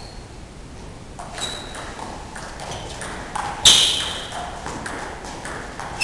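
Table tennis ball clicking back and forth between rackets and the table in a fast doubles rally, with one loud, sharp hit about two-thirds of the way through.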